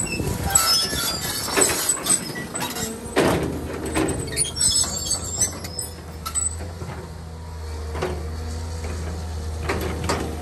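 CAT 320 hydraulic excavator's diesel engine running under load as it clears brush, with a steady low hum. Scattered cracks, snaps and high squeaks of breaking branches and working machinery come through the first half, then it settles to a steadier engine hum.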